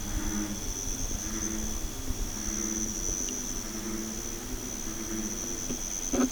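A chorus of frogs calling in repeated low croaks, over a steady high-pitched trill of crickets or other night insects. A short knock sounds near the end.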